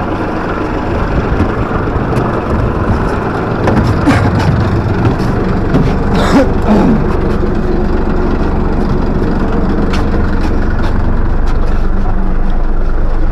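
Vehicle engine running with a steady low rumble, heard from inside the vehicle as it sets off. It is busier for a few seconds in the middle, with knocks and a short falling tone, then settles into an even, slightly louder drone.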